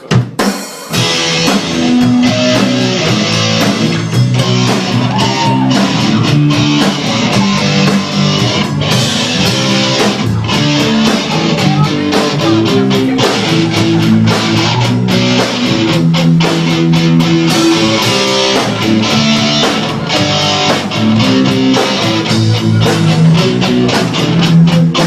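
Rock band's instrumental intro: electric guitars and drums playing a steady beat before the vocals come in.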